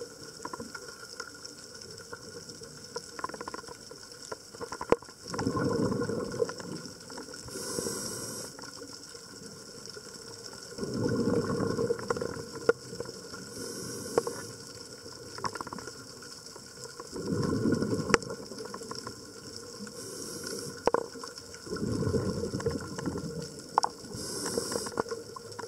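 Scuba diver breathing through a regulator underwater: a short hiss on each inhalation and a rumble of bubbles on each exhalation, the cycle repeating about every six seconds. Scattered sharp clicks sound between breaths.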